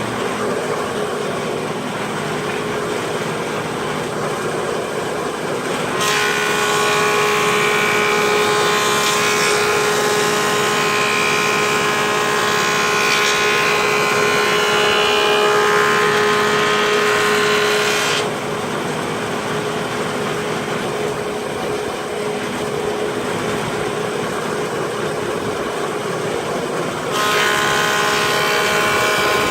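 Craftsman Model 306 (Foley Belsaw 910/912) planer molder running, its 5 horsepower motor driving the three-knife cutting head. From about 6 s to 18 s a board feeds through and the sound gets louder, with a whine over the cutting noise. It then drops back to the free-running machine and gets louder again near the end as another pass begins.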